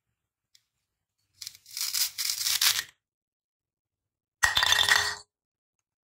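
Two halves of a plastic toy grape pulled apart at their velcro join: a crackly rip about a second and a half long. Then the pieces are dropped into a bowl: a sudden clink with a brief ring.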